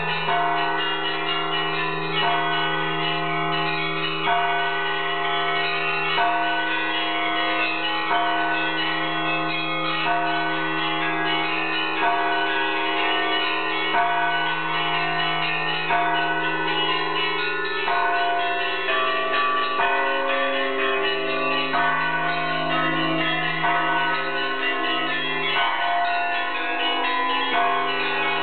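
Russian Orthodox church bells rung in a continuous peal (perezvon): small bells, sounded by ropes tied to their clappers, strike in a quick repeating pattern over a low steady hum that rings on beneath them.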